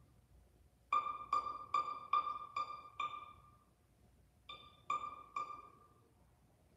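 String quartet playing one high note plucked pizzicato again and again: six quick, evenly spaced plucks, a short pause, then three more, each ringing briefly like a drip. These are the sparse closing notes of the piece, which die away into quiet.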